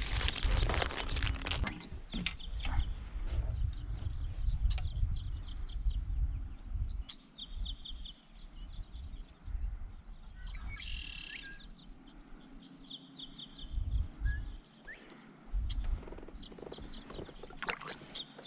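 Birds chirping in short bursts over a low, gusty wind rumble on the microphone.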